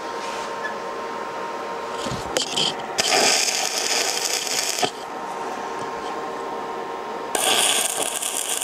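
Stick-welding arc crackling on steel in two tack welds of about two seconds each, one about three seconds in and one near the end, with a short scratchy arc strike just before the first.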